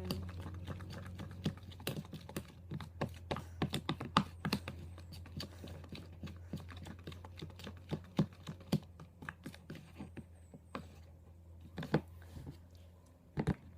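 A spoon clicking and tapping irregularly against a bowl as glue and pink paint are stirred together for slime, the clicks thickest in the first few seconds, over a steady low hum.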